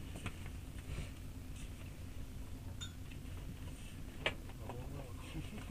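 Interior of a stationary passenger train carriage: a steady low hum with scattered light clinks and clicks, and one sharper click about four seconds in.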